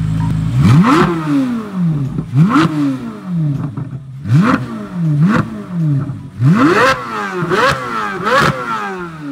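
Chevrolet C8 Corvette Z06's naturally aspirated 5.5-litre flat-plane-crank V8 idling, then revved in about seven quick throttle blips. Each blip sweeps sharply up in pitch and falls back, and the last three come close together near the end.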